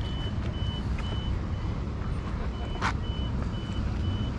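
High-pitched electronic beep repeating about twice a second, pausing briefly in the middle, over a steady low rumble. A single sharp click sounds about three seconds in.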